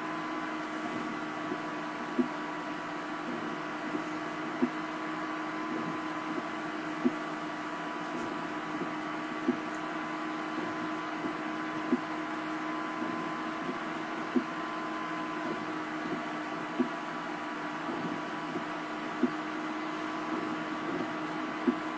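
Steady hum inside a stopped Chevrolet Tahoe's cabin, from the idling engine and blower fan, with a soft click repeating about every two and a half seconds.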